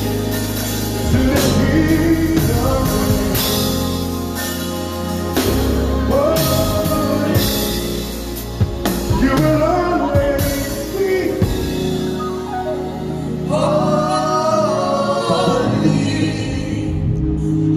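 Live gospel worship band: drum kit, bass and keyboard, with sung vocals and backing singers, all through a church sound system.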